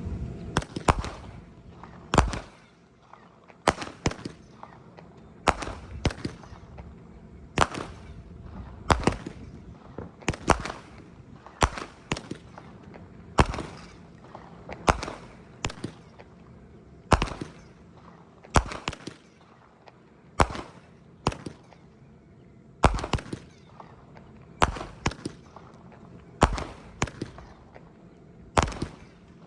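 25-shot 200 gram consumer firework cake firing shot after shot: a steady series of sharp bangs, often in close pairs, about one to two a second.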